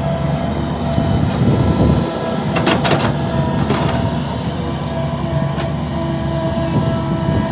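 Heavy diesel earthmoving machinery running, with a low engine drone and steady higher whine, and a quick cluster of sharp metallic clanks about three seconds in, with another clank just after.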